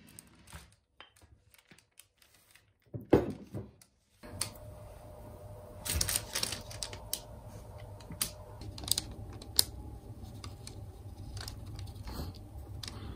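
Scattered small taps, clicks and light paper rustles of hands working a sheet of air-dry clay on baking paper. First comes a wooden rolling pin, with a louder knock about three seconds in. From about four seconds on, a stainless steel round cutter is set onto the clay and pressed down, over a faint steady hum.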